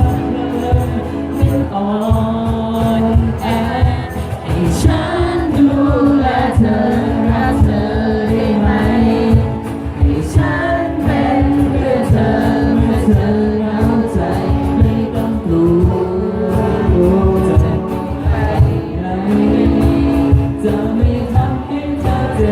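A pop song playing: a steady beat under a sung melody.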